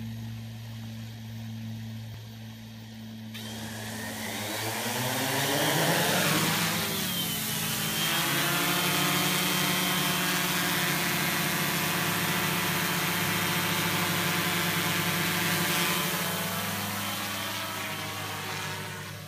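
Tarot 680 Pro hexacopter's six SunnySky 3508 580kv brushless motors with 13-inch carbon propellers: a low hum, then spinning up with a rising whine about four seconds in as it lifts off. A steady buzzing drone follows while it hovers, and it fades near the end as it flies away.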